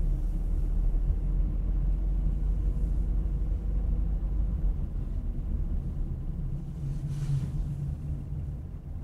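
Car on the move: a steady low rumble of road and engine noise, with a brief hiss about seven seconds in.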